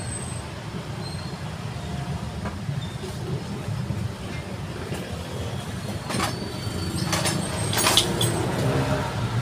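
Steady low rumble of motor traffic, with a few sharp clicks and knocks between about six and eight seconds in, as a sander's plastic base pad is handled.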